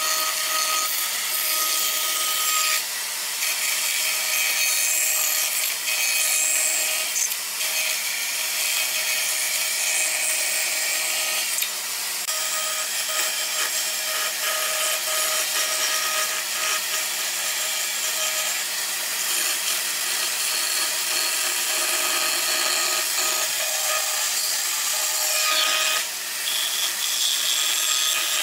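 Bench band saw cutting a curve through pine pallet boards: the blade runs continuously through the wood as a steady sawing hiss over the machine's even tone.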